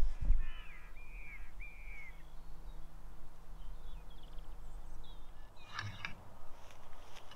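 A bird gives three short, harsh, crow-like calls in quick succession, over a low rumble of wind on the microphone. About six seconds in there is a brief clatter as a tripod is handled.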